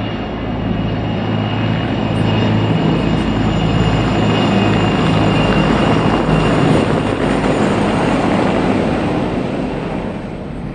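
Formation of military helicopters passing overhead: steady turbine engine and rotor noise with a thin high whine, swelling to its loudest about six seconds in and fading near the end.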